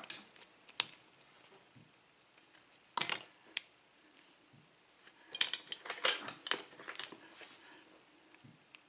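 Small sharp metallic clicks and scrapes of a pin-tumbler lock cylinder being handled and worked apart by hand, with a quick cluster of clicks a little after the middle.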